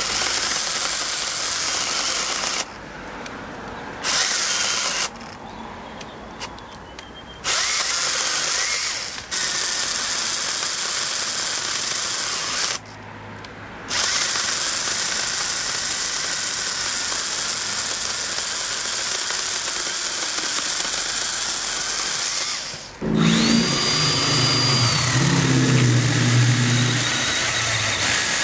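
Makita DUC101 12 V cordless pruning chainsaw cutting through a small tree trunk in several runs, the cutting sound stopping briefly three times in the first half. About 23 s in, it gives way to a different cordless chainsaw, the Milwaukee M12 hatchet pruning saw, running with a lower motor sound and a steady high whine.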